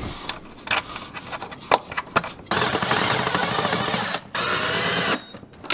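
A few light metallic clicks of parts and bolts being handled, then a handheld power driver runs twice to run in the shifter's mounting bolts: first for about a second and a half, then, after a short pause, for under a second with its pitch wavering.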